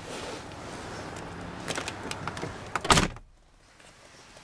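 Passenger door of a 1994 Buick Roadmaster Estate Wagon pulled shut from inside with one heavy thud about three seconds in, after which the outside background drops away. Before it, rustling and small clicks of someone settling into the seat.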